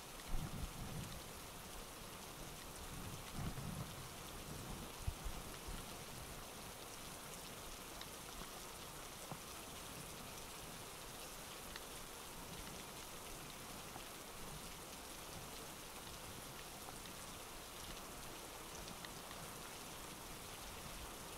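Steady rain falling on the reservoir's water, an even hiss, with a few low thumps in the first five seconds.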